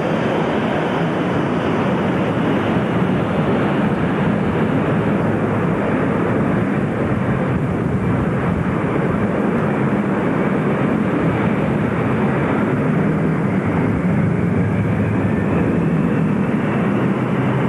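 Jet airliner engines of a McDonnell Douglas DC-10 coming in to land and then a Boeing 747 on the runway, a loud, steady rush of engine noise. Over the last few seconds a whine rises in pitch.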